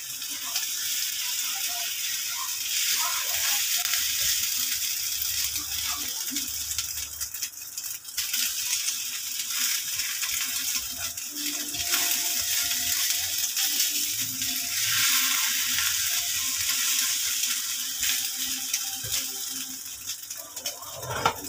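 Egg-and-sardine omelette frying in hot oil in a nonstick pan: a steady sizzle that swells and eases a few times.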